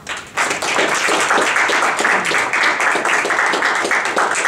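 Audience applauding, breaking out all at once and going on steadily as dense, loud clapping.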